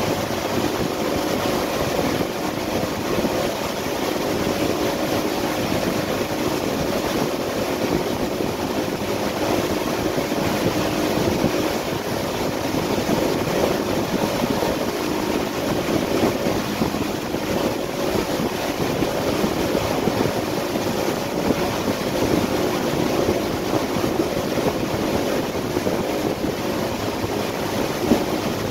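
Yamaha AR240 jet boat running steadily under way, its engine hum mixed with the churning wash of the wake and wind on the microphone.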